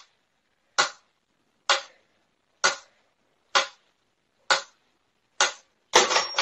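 Mechanical pendulum metronome ticking steadily, a sharp click a little under once a second. Near the end a denser, louder stretch of noise comes in.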